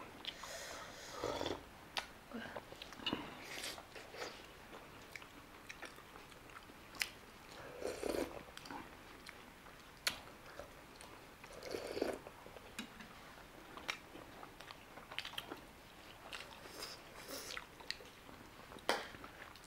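Close-up chewing and biting of steamed chicken momo dumplings, with wet mouth clicks and smacks at irregular intervals.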